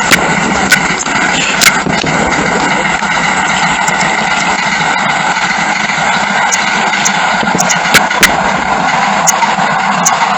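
Fireworks display through a feature phone's microphone: a dense, steady rumble of bursts with sharp cracks breaking through at irregular moments.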